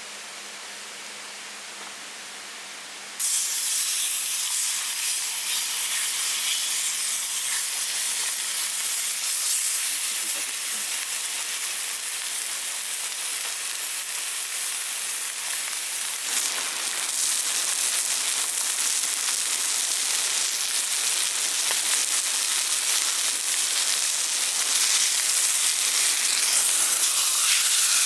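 Food sizzling in a hot pan or on a grill: a dense, bright hiss with light crackle that starts suddenly about three seconds in, after a softer steady hiss.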